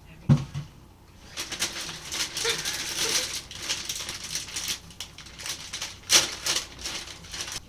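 Dry Chex cereal pouring into a bowl: a dense, steady rattle of many small pieces falling, after a single thump just after the start and with a louder surge about six seconds in.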